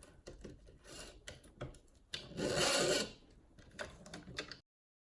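Wires being pulled through a hole in a 3D-printed plastic frame: scattered small clicks and rubbing, with a longer scraping rub about two seconds in. The sound cuts off suddenly near the end.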